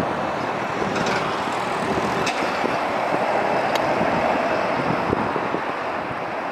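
Jet airliner taxiing at idle power, its engines making a steady, even rushing noise heard across the airfield.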